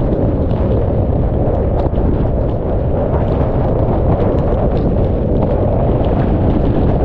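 Hurricane eyewall wind buffeting the microphone of a camera mounted on a car roof: loud, steady wind noise heaviest in the low end, with faint ticks of rain striking the camera.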